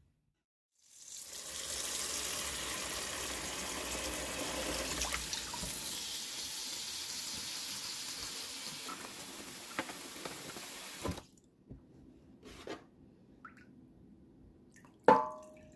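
Tap water running into a stainless steel bowl half full of water around a whole cauliflower head. It starts about a second in, runs steadily and cuts off after about ten seconds. A few light knocks follow, then a sharp, ringing clink near the end.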